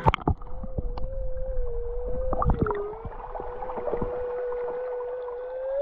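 Metal detector's threshold tone, one steady mid-pitched hum, with a few sharp knocks of the search coil against rock. At the very end the tone starts to climb as the coil comes over a target, the start of the signal from a gold nugget.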